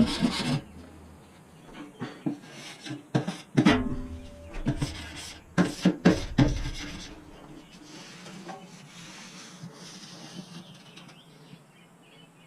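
Scraping and rubbing with several sharp knocks in the middle, then fainter scraping.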